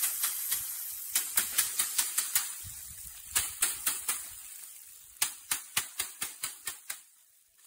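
A wooden stick rapidly beating a bundle of dry plant stalks held upside down, threshing the seed out: sharp dry taps about five a second. The taps come in three runs with short pauses between them, then fade out near the end.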